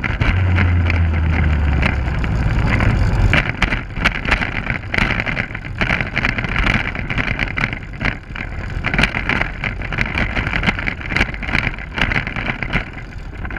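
Wind rushing over a camera carried on an open vehicle in motion, with road noise. A low hum runs for about the first three seconds, then gives way to frequent sharp knocks and rattles as it goes over rough ground.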